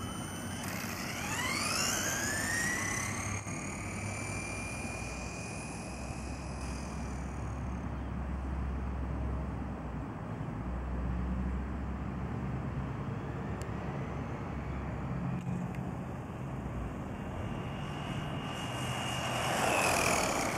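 Brushless electric motor of a hobby-grade RC buggy whining under acceleration. The high whine rises sharply in pitch during the first two seconds and holds for several seconds as the car speeds away. A second rising whine grows loudest near the end as the car runs back past close by.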